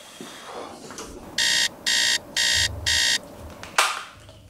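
Electronic alarm beeping: four short, loud, identical beeps, about two a second, then a sharp click near the end.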